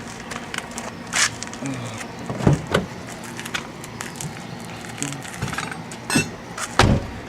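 Scattered clicks and knocks from a car as its parking brake is set, with two heavier thumps, one about two and a half seconds in and one near the end.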